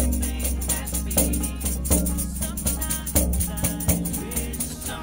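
Background music with a steady percussive beat under a melody.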